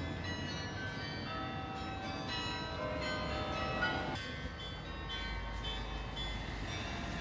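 Several bells ringing at different pitches, one tone after another, each dying away, over a low background rumble.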